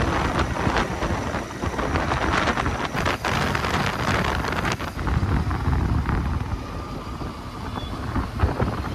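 Wind buffeting the microphone on a moving Royal Enfield Interceptor 650 motorcycle, over a steady rush of engine and road noise, with a single knock near the end.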